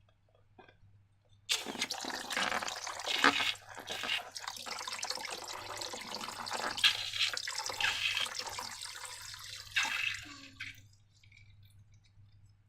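Wet, sloshing liquid sounds of slime ingredients being poured and worked, starting about a second and a half in with uneven surges and fading out around ten seconds in.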